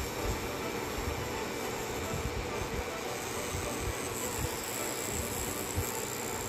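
Tattoo machine running steadily while lining a tattoo: a continuous, even mechanical buzz.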